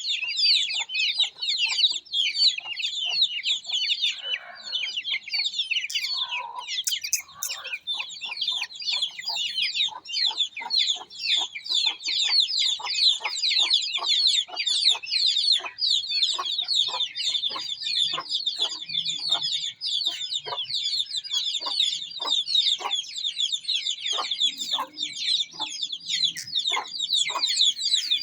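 A large group of Aseel chicks peeping constantly: a dense chorus of high, falling cheeps. Beneath it, short lower calls repeat about twice a second.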